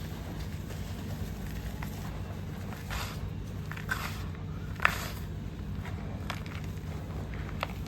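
Dry, crunchy crumbles being bitten and chewed: a few scattered crisp crunches, the sharpest about five seconds in, over a steady low hum.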